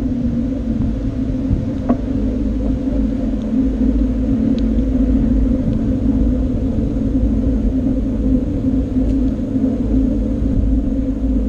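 Wind rumbling on a bicycle-mounted action camera's microphone while riding, under a steady low hum.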